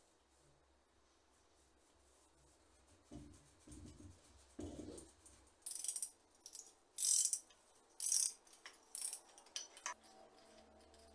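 Hands working metal parts on a bicycle frame: a few dull knocks, then a run of short, sharp metallic scrapes and clicks about halfway through.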